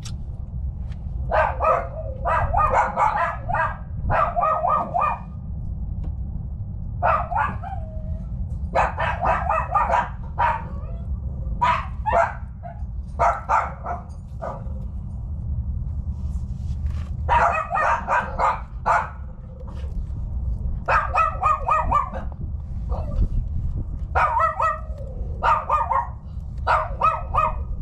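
A dog barking repeatedly in runs of several barks, over a steady low hum.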